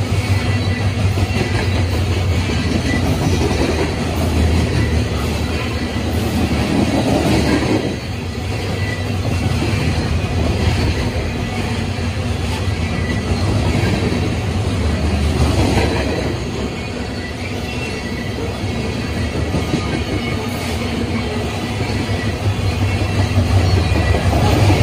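Loaded CSX coal hopper cars rolling past: a steady low rumble of steel wheels on the rails that swells and eases every few seconds, with a faint high wheel squeal.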